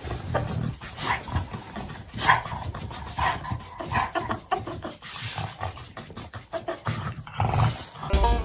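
Dog panting and making short, irregular vocal noises, many in quick succession.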